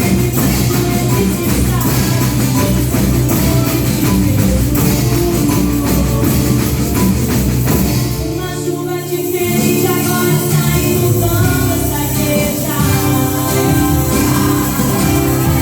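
A percussion band playing worship music, with drums and tambourine driving a steady beat. About eight seconds in, the drums drop out briefly, leaving held chords, then the beat comes back.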